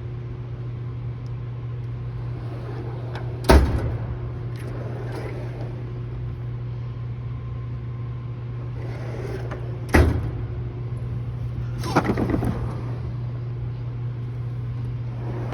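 Steel drawers of a Harbor Freight Icon 56-inch tool box sliding on their runners and shutting with a sharp metal bang, twice, about a third and two-thirds of the way in. Shortly after the second bang comes a rattling close of another drawer. A steady low hum runs underneath.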